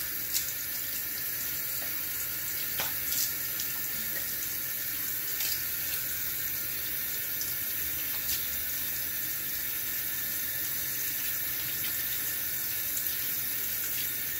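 Bathroom sink tap running steadily as water is splashed onto the face to rinse it, with a few short splashes along the way. The running water stops abruptly at the very end.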